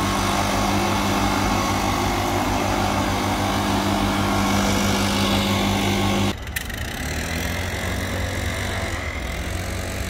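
Small petrol engine of leaf-clearing equipment running steadily at a constant pitch. It stops abruptly about six seconds in, leaving a fainter, lower engine hum.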